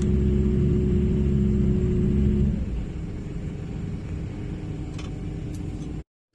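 Wheel loader's diesel engine running steadily, heavy in the low end. About two and a half seconds in it drops noticeably in loudness, and near the end the sound cuts off abruptly.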